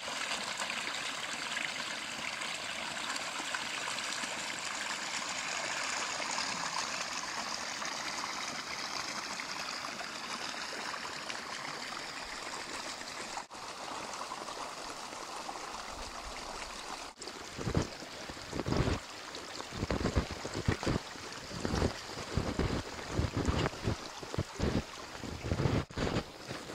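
A brook running steadily, open water between snow banks. About two-thirds of the way in, that gives way to irregular thumps of snowshoe footsteps in fresh snow, one or two a second.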